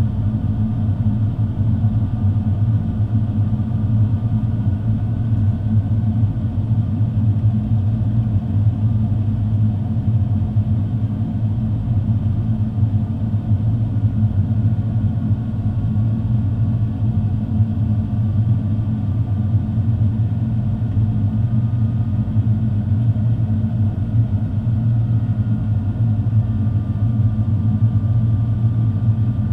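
Steady low rumble of an Airbus A350's Rolls-Royce Trent XWB engines and the airflow, heard inside the cabin during the climb, with a faint high whine above it.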